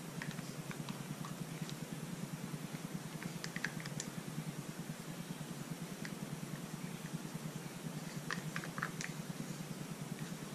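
Scattered faint clicks and taps from gloved hands handling a small plastic paint cup and a wooden stir stick while pouring acrylic paint, in small clusters about a third of the way in and again near the end, over a steady low hum.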